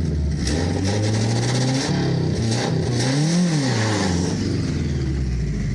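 Subaru all-wheel-drive engine revving hard in a burnout attempt, rising in pitch for a couple of seconds and then dropping back, as all four wheels spin in the mud.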